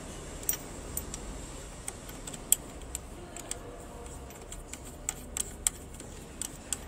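Light, irregular metallic clicks and ticks as the ceramic ring and its retaining nut are fitted and screwed tight by hand on a fiber laser cutting head, over a steady low hum.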